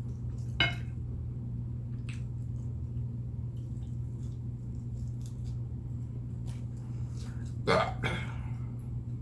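A short burp about half a second in, then a longer burp near the end whose pitch falls, over a steady low hum.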